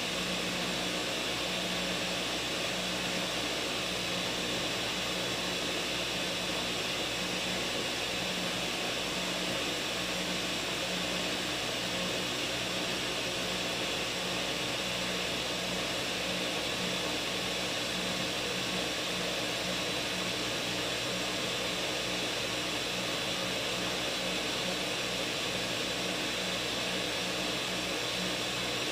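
Ninja countertop blender running steadily, blending a thick green smoothie of spinach, arugula and frozen strawberries. The blender seemed to be having trouble with the thick mix, so it is left to blend longer than usual.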